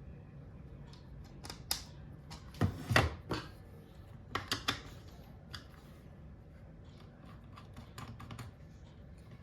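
Scattered clicks and knocks of small parts and hand tools being handled while a cordless compressor is taken apart, loudest in a cluster about three seconds in, with more at about four and a half seconds, over a low steady hum.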